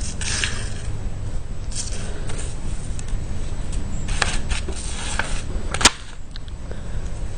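Handling noises: rustling with a few sharp clicks, the loudest about six seconds in, over a steady low rumble.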